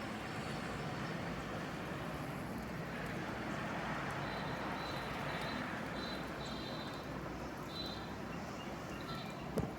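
Aeroplane flying overhead: a steady broad rumble that swells a little around the middle. Short bird calls repeat from about four seconds in, and a single sharp knock comes near the end.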